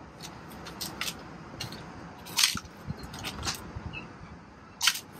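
Lead-acid 12-volt batteries being shifted and set down on a concrete pad: a series of short scrapes and knocks, the loudest about two and a half seconds in and just before the end.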